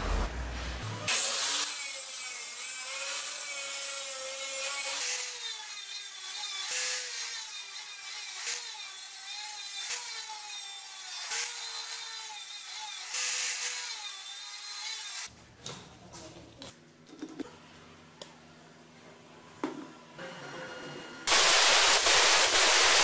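Abrasive chop saw cutting steel tubing: a high whine whose pitch wavers as the blade bites. After about fifteen seconds it stops, leaving a quieter low hum with a few knocks. Near the end an angle grinder with a flap disc grinds loudly across a weld bead on the tube.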